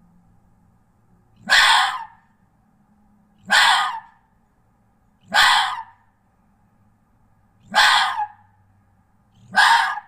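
Red fox calling: five harsh, rasping cries about two seconds apart, each lasting around half a second.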